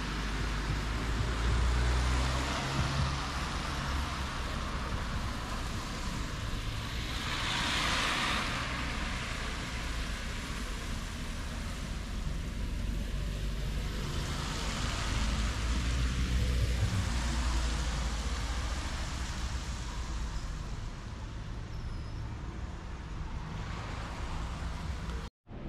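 City street traffic: road vehicles passing close by with engine rumble and tyre noise that swell and fade, and a brief hiss about eight seconds in.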